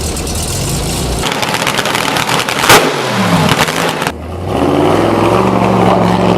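Car engine running, revving up about halfway through and then holding steady at higher revs, with one sharp click just before the rise.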